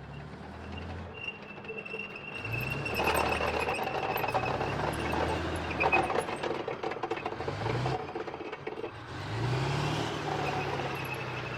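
A platoon of tanks passing: tracked-vehicle engines running and revving up several times, with tracks clattering and a steady high squeal. The sound is loudest about a third of the way in to two-thirds, dips briefly, then swells again as another vehicle comes by.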